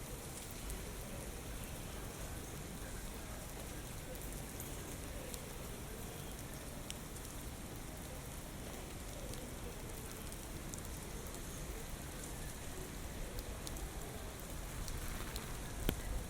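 Steady typhoon rain hissing down, with scattered drops ticking close by. Near the end a low rumble of wind builds in.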